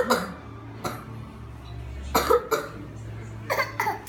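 A small child's put-on, fake coughs: several short single coughs spaced out, with two in quick succession near the end.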